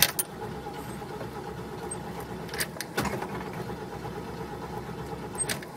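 A van's engine being cranked by the starter motor for about six seconds without catching, a steady fast churning that stops abruptly near the end when the key is let go. The choke is in use, which a helper says is what keeps it from starting.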